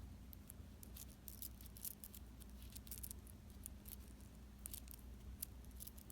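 Bike chain fidget toy being worked in the fingers, its links making many faint, irregular light clicks over a low steady hum.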